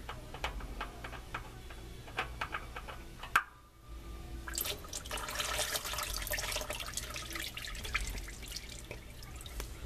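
Engine oil dripping from the oil filter into a drain pan as the filter is unscrewed by hand, a sharp click about three and a half seconds in, then the oil running out in a steadier trickle as the filter comes off.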